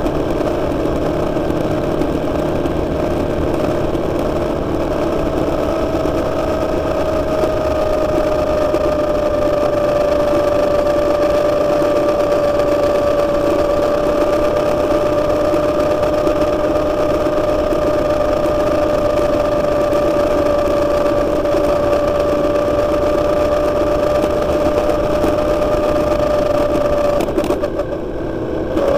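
Motorcycle engine running at a steady cruising pitch that eases slightly in the first several seconds, with a brief drop in level shortly before the end.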